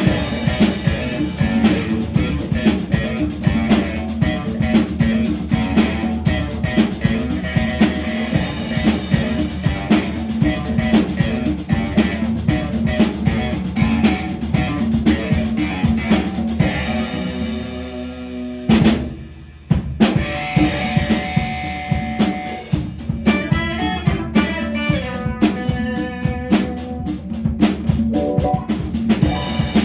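A rock band playing together: a drum kit with rimshots and bass drum, electric guitar and bass. About 19 seconds in the band stops abruptly for under a second, then comes back in with guitar lines over the drums.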